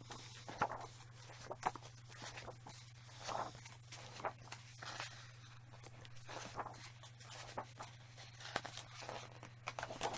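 Faint paper and card handling: soft rustles and light taps, scattered about once a second, as the pages and card parts of a heavy box-set book are handled, over a low steady hum.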